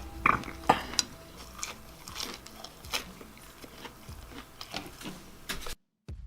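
A person biting and chewing food, with a run of short sharp crunching and clicking sounds, the two loudest about a third and two-thirds of a second in. The sound cuts off suddenly near the end.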